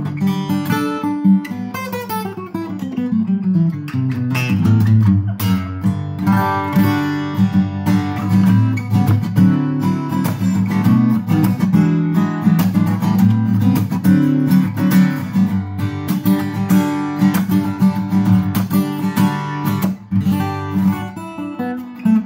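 Cat's Eyes CE-200 dreadnought acoustic guitar with a spruce top, freshly strung, played fingerstyle: picked notes and chords throughout, with a run of notes falling in pitch about two seconds in.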